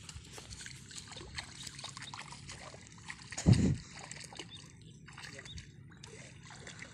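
Shallow water splashing and sloshing, with small trickles, as hands grope through it for fish. There is one heavier low thump about halfway through.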